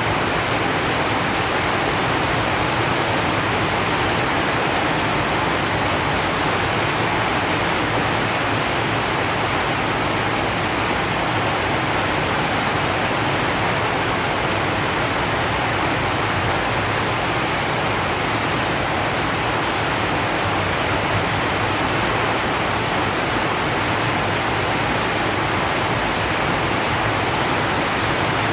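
Heavy rain falling on a zinc sheet roof: a steady, even rush of noise with no single drops standing out.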